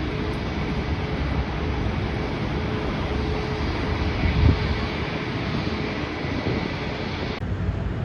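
Jet airliner engine noise from a Boeing 737 MAX 8 with CFM LEAP-1B engines: a steady roar with a faint constant tone, and a brief low thump about halfway through.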